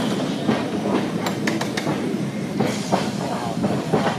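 Heritage electric tramcar running along its track with a steady rumble and rattle. Its wheels give a run of sharp clicks on the rails a little over a second in, and a few more near the end.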